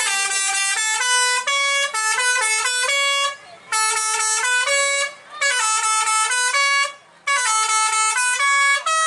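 Tour bus 'telolet basuri' musical horn playing a tune, loud stepped notes in four short phrases with brief breaks between them.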